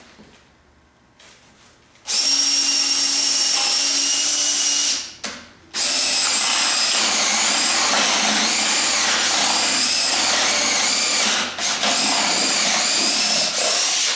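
Cordless drill running under load in two runs, stopping briefly about five seconds in. In the second, longer run the motor's whine wavers up and down as the load changes.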